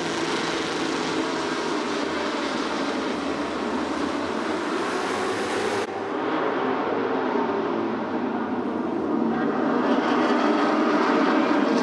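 A full grid of superbike racing motorcycles at a race start: many engines revving hard together as the pack launches off the line and accelerates away. The mass of engine noise changes abruptly about six seconds in and grows louder toward the end.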